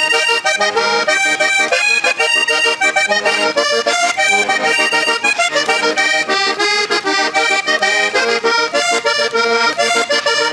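Hohner Corona III three-row diatonic button accordion played solo in vallenato style, a fast, unbroken run of melody notes and bass chords.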